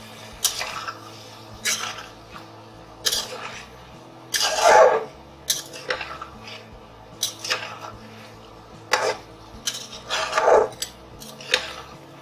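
Metal spatula clinking and scraping against a steel pot while stirring frying cauliflower and potato pieces: irregular sharp clinks, with two longer, louder scrapes.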